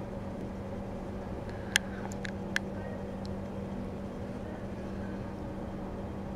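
Steady low machine hum of room ambience, with three sharp clicks about two seconds in, the first the loudest.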